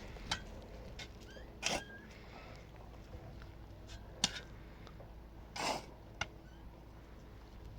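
A handful of scattered knocks and scrapes, about five in all, with faint short chirps between them over a low steady hum.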